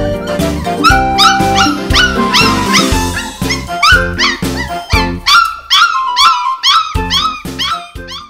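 Labrador puppies yipping and whining in short, repeated rising-and-falling cries, about two a second from about a second in, over background music with a steady beat.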